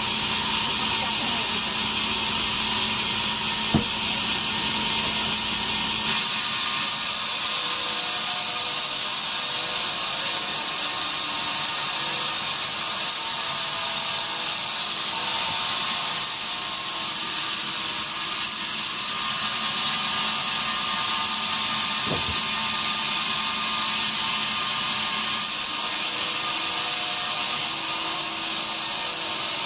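Sawmill bandsaw running and cutting pine, a steady dense machine noise. A deeper hum drops out about six seconds in, and there are two single sharp knocks.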